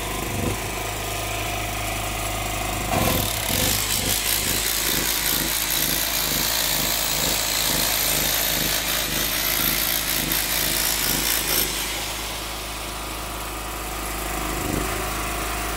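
Corded demolition hammer chiselling into a stone wall from about three seconds in until about twelve seconds in, over a steady low engine hum that runs throughout.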